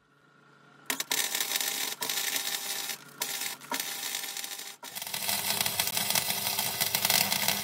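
Gasless (flux-core) MIG welder arc crackling as steel bolts are welded on as legs. It starts about a second in and runs in several welds with short breaks between them.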